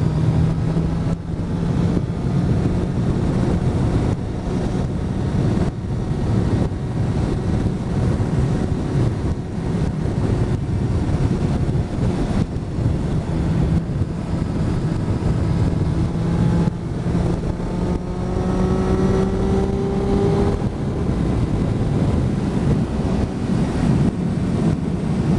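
Motorcycle engine running at road speed under heavy wind buffeting on the microphone, its note rising gently partway through as the bike picks up speed.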